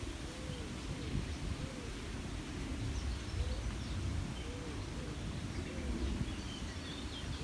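A dove cooing in a run of short, low notes that rise and fall, with faint, higher chirps of small birds and a steady low rumble underneath.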